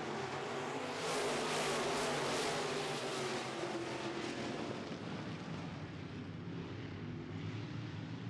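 A pack of dirt-track modified race cars at full throttle on a restart, many V8 engines running together. The sound is loudest from about one to three seconds in, with the engine note sliding lower, then eases off as the field moves away.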